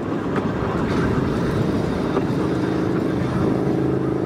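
Volk's Electric Railway car running along the track: wheels rumbling on the rails, joined about a second and a half in by a steady hum from the car's electric drive.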